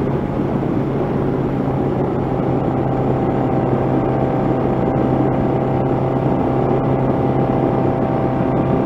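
1985 Honda CB700SC Nighthawk's inline-four engine running at a steady cruising speed with an even pitch, over wind noise.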